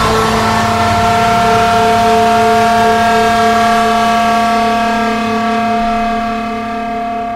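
The closing held chord of a black metal song: the drums stop and a sustained chord rings out steadily, then slowly fades away.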